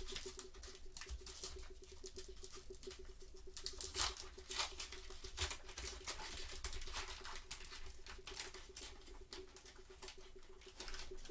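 Gypsy Queen baseball card pack wrapper being torn open and crinkled by gloved hands, a run of irregular crackly clicks, with the cards sliding out. A faint steady hum underneath.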